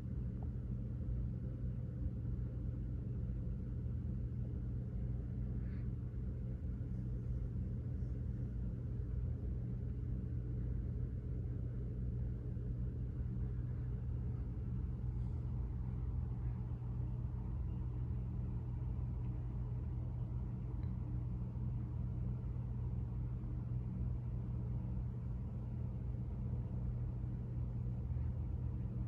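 A steady low-pitched hum with a faint rumble under it, unchanging throughout.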